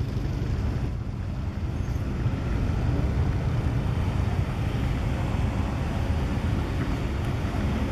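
A slow line of cars, an SUV, a hearse and a limousine, passing close by: steady tyre and engine noise, with wind rumbling on the microphone.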